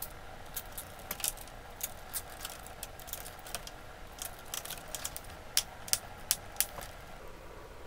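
Nylon cable ties being pulled tight around bundles of wires: a run of small plastic clicks. A few sharper clicks come about two-thirds of the way through, as the tie tails are cut with small cutters.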